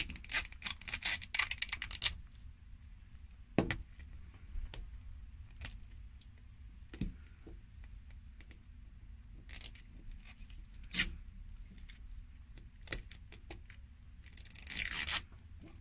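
Fingernails picking and scratching at the plastic wrap of a LOL Surprise doll ball. A quick run of crackly clicks comes first, then scattered clicks and taps, and a longer crinkle near the end.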